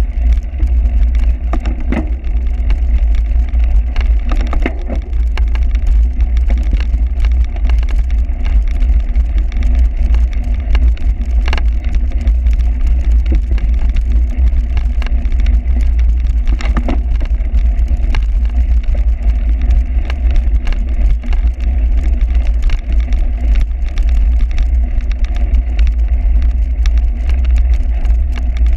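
Heavy, steady low wind rumble buffeting a moving camera's microphone, with scattered clicks and knocks throughout.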